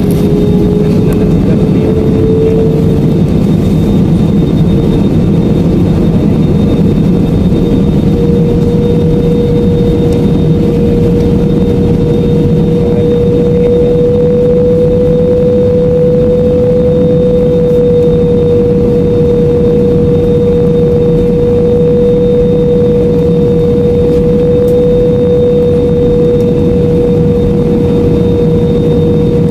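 Airliner cabin noise heard from a window seat over the wing: steady jet engine and airflow rumble with a steady hum that rises a little in pitch a few seconds in, then holds.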